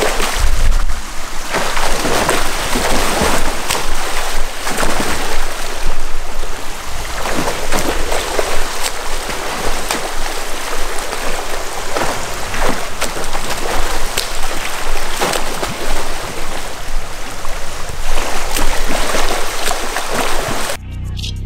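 Water splashing from a swimmer doing front crawl, with arm strokes and flutter kicks churning the pool surface in uneven surges. This is the streamlining drill: three strokes, then a glide on the side with six kicks. The splashing gives way abruptly to music near the end.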